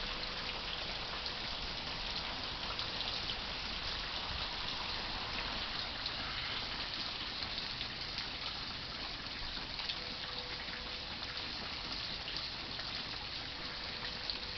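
Rain falling steadily, with scattered sharp ticks of individual drops.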